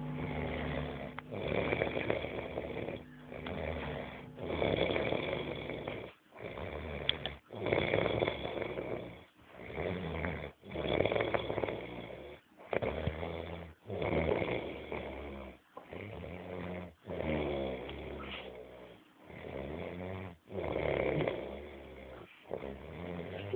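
A person snoring: a rasping in- and out-breath about every one and a half seconds, each one broken off by a short pause, in a steady rhythm.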